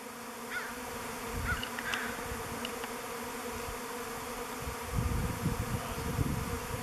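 A honey bee swarm in flight, buzzing as a steady drone. Low rumbles come through about a second and a half in and again around five seconds.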